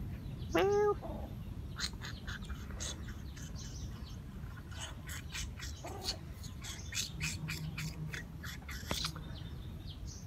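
A cat gives one short, arching meow about half a second in, the loudest sound here. Small birds chirp in the background throughout.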